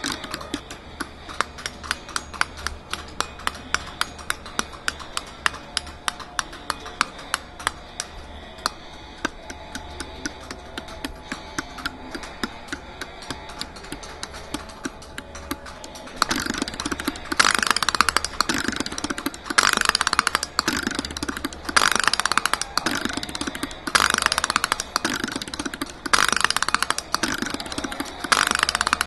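A bank of electromechanical relays in an acrylic case clicking in fast, uneven succession while the drive is being adjusted. About sixteen seconds in they change to rapid chattering in bursts of about a second and a half, repeating roughly every two seconds.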